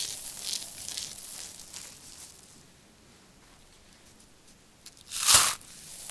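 Dry shredded soap crunching and rustling as handfuls are squeezed, dying away about two and a half seconds in. Near the end comes one short, loud crunch as a packed ball of soap shreds is pressed and broken apart.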